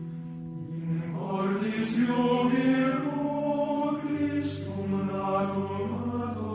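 A choir singing slow, sustained chant, with a deep low note joining about four seconds in.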